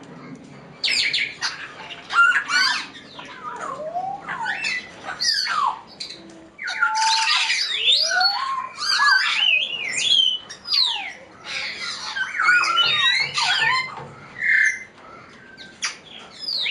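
African grey parrots calling: a dense run of squawks and whistles that glide up and down, overlapping as if from several birds, with a short lull about six seconds in.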